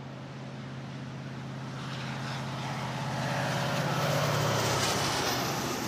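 A vehicle passing by, growing louder to a peak about four seconds in and easing off near the end, over a steady low hum.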